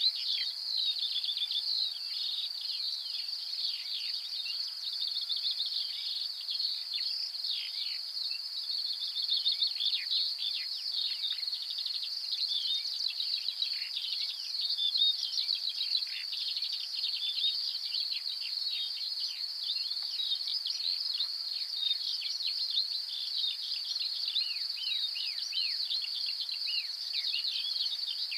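Dense outdoor chorus of insects and birds: a steady high insect trilling with many quick falling chirps layered over it throughout.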